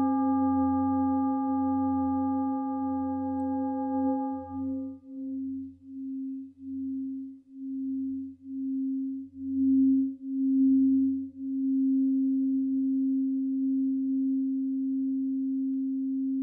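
A large Tibetan singing bowl, about 31 cm across, sounded with its mallet, giving one long, deep low tone. Its higher overtones die away about four seconds in; the tone then wavers, pulsing about twice a second, and swells again near the middle before settling into a steady hum.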